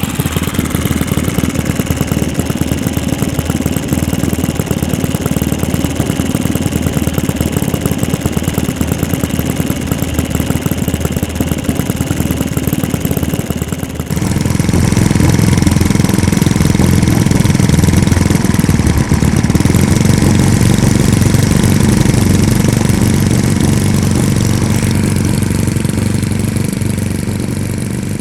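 Twin four-stroke glow model aircraft engines, an O.S. FS-62V tractor and a Saito FA-62 pusher turning 13x6 propellers, running on a ground test. About halfway through they step up sharply to a louder, higher-throttle run, easing off a little near the end.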